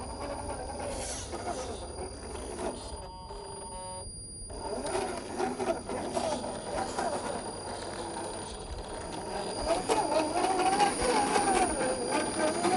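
Whine from a 1/10 scale RC crawler's electric motor and gearbox, rising and falling in pitch as the throttle changes, with a short break about a third of the way in and louder near the end.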